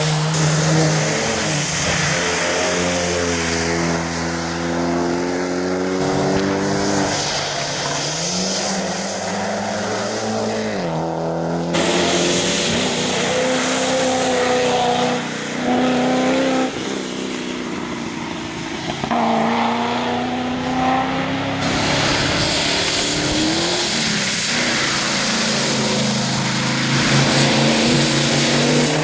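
Rally cars driving hard on a wet tarmac stage, one after another: engines revving up through the gears and dropping back under braking, over a steady hiss from the wet road. The sound changes abruptly twice as one car's run gives way to the next.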